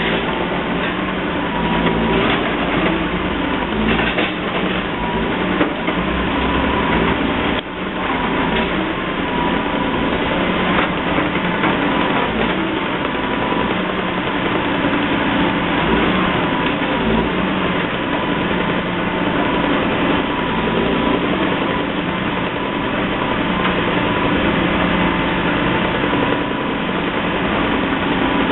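Engine of heavy road-construction machinery running steadily, with a brief dip about seven and a half seconds in.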